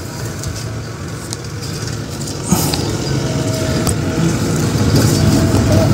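Motor vehicle running, a steady low hum that grows gradually louder, with a sudden step up about two and a half seconds in.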